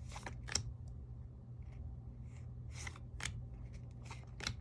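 Topps baseball trading cards being slid and flipped through by hand: several short, papery swipes as one card is moved behind another, over a low steady hum.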